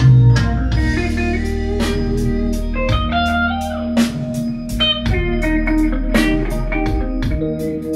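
Blues-rock song playing back through Canton Reference 1.2 DC floorstanding loudspeakers and a Canton subwoofer: an instrumental stretch with electric guitar over bass and drums.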